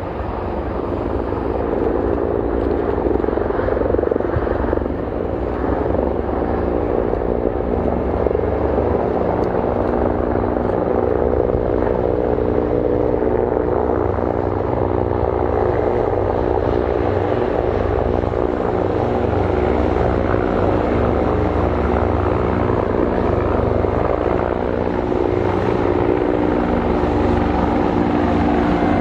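Bell CH-146 Griffon military helicopter running close by: a loud, steady mix of turbine and gearbox tones over the chop of the main rotor. It swells over the first couple of seconds, then holds steady.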